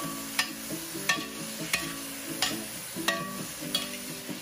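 Light background music with a steady beat about every two-thirds of a second, over a spatula stirring and sizzling diced tofu and vegetables in a hot stainless wok.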